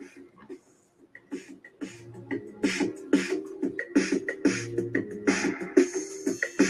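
Music with a percussive beat over sustained tones and a recurring bass note, sparse at first and filling out about two seconds in.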